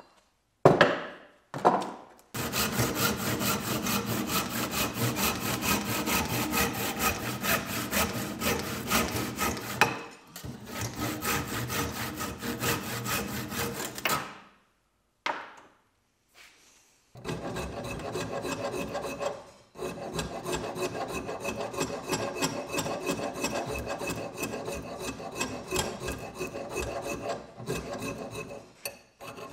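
Hand saw cutting through the wooden handle end and wedge sticking out of an axe head's eye, in quick, even strokes. There are two long runs of sawing with a pause of a few seconds between them.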